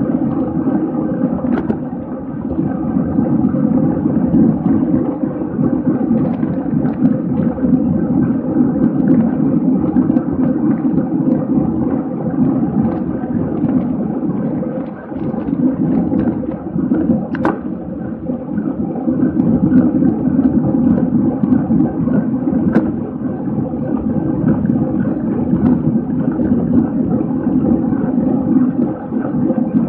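Wind and road noise on a camera riding on a racing bicycle at speed: a steady low rush, with a few faint clicks.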